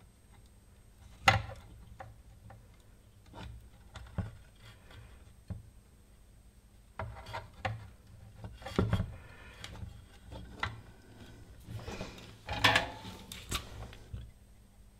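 Irregular clicks, knocks and rubbing of tools and wire being handled on a workbench during soldering, with a sharp click about a second in and busier clusters of handling noise around the middle and near the end, over a faint steady hum.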